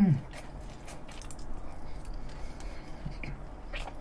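Close-miked chewing with the mouth closed: faint soft clicks and smacks. A short hummed vocal sound trails off right at the start.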